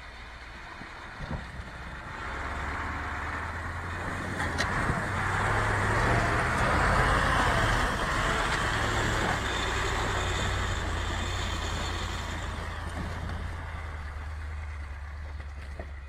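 KamAZ logging truck's diesel engine running under load as it fords a flooded crossing, its wheels churning and splashing through the water. The splashing swells to its loudest about halfway through as the wheels pass close, then eases off.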